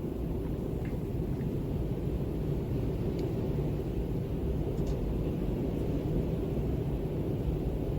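Steady low wind rumble, an even deep noise without gusts or pitch, with a few faint ticks.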